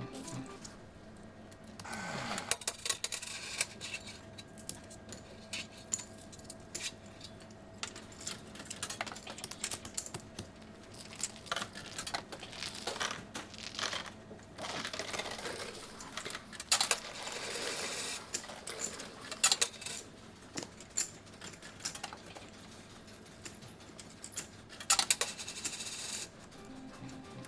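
Casino ambience without voices: repeated bursts of clinking and clattering over a steady background hum. About two seconds in, a held tone starts and lasts several seconds.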